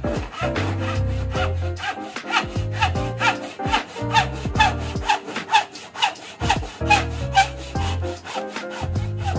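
Hand saw cutting by hand into a wooden board for a lap joint, in regular rasping strokes about two a second.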